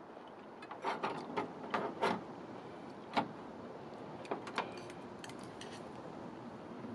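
Light clicks and knocks of eating utensils against dishes at a meal table: a quick cluster of them between about one and two seconds in, a single sharper one a little after three seconds, and a couple more near the middle.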